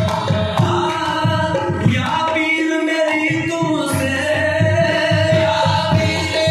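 Male voices singing a Sufi devotional kalam together over a held tone, with steady drum beats; the drumming drops out for about a second midway, then resumes.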